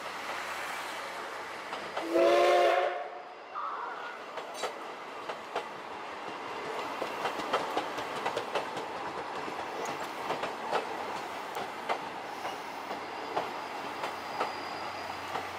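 12-series passenger coaches of a steam-hauled train rolling past, their wheels clicking irregularly over rail joints. About two seconds in, the C57 steam locomotive gives one short, loud whistle blast of several pitches at once.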